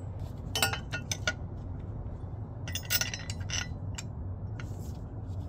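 Light metal clinks and taps, in a few quick clusters, as a lift-kit clevis fork is handled and slid onto the bottom of a front strut, over a low steady hum.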